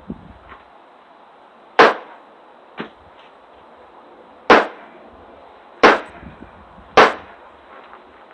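Hammer striking the back of a survival multi-tool hatchet to drive it down through a log and split it: four loud, sharp metal-on-metal blows a second or so apart, with a lighter knock between the first two.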